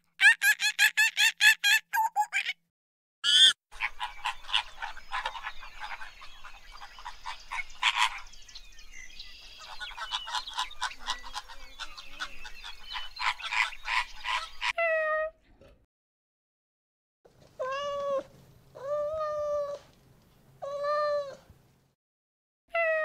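A rapid run of loud, evenly spaced animal calls for the first two seconds or so. Then a flock of flamingos honking and chattering over one another for about eleven seconds. Near the end a domestic cat meows three times.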